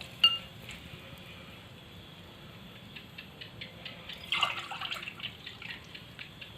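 Water dripping, with a sharp ringing clink of kitchenware just after the start, scattered small clicks, and a brief splash a little past four seconds in, as water is put in for boiling.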